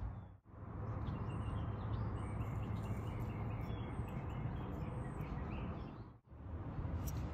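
Outdoor ambience: a steady low rumble with small birds chirping now and then, dropping out briefly twice at the shot changes.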